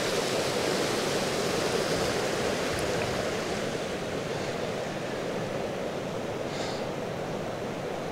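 Baspa river water rushing steadily over its bed, an even noise with no breaks.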